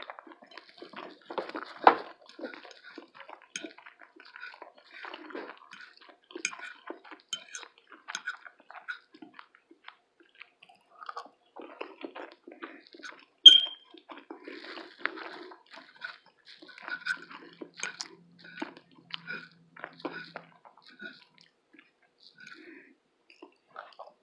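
Close-up mouth sounds of someone chewing food, with many small irregular wet smacks and clicks. About thirteen seconds in there is one sharp clink with a brief ring, the loudest sound.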